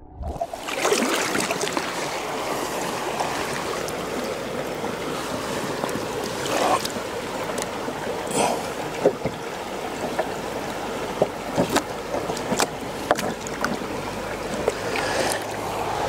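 Shallow river running over rocks, a steady rushing noise, with a few short sharp knocks and splashes as a wooden deck standing on adjustable legs in the water is pressed and shifted.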